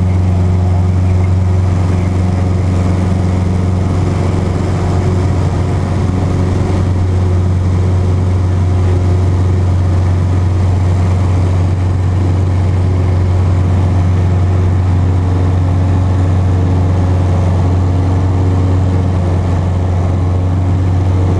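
Cessna Cardinal's four-cylinder piston engine and propeller running at climb power after takeoff, heard from inside the cockpit as a loud, steady, deep drone that holds one pitch throughout.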